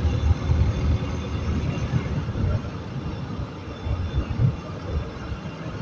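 A motorcycle with a stock exhaust cruising at about 60 km/h, heard as an uneven low rumble of wind buffeting the microphone mixed with engine and road noise.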